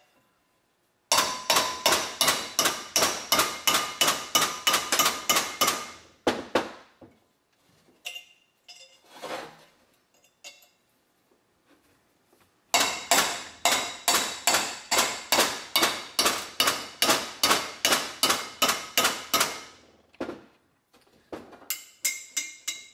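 A hammer rapidly striking a steel chisel against a brake rotor rusted onto its wheel hub (Toyota Land Cruiser 100 Series front), to work the two apart. Sharp ringing metal taps come about four a second in two long runs, with a pause and a few scattered knocks between.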